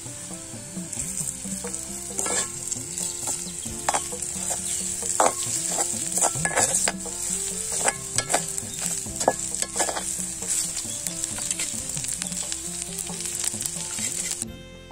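Onions, green chillies and leaves sizzling as they fry in hot oil in a pot, stirred with a ladle that clicks and scrapes against the pot again and again. The sizzle cuts off suddenly near the end.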